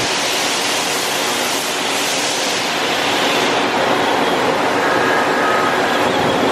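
Brother Speedio S700X1 CNC machining center moving its Z-axis: a steady rushing noise with a faint whine about five seconds in.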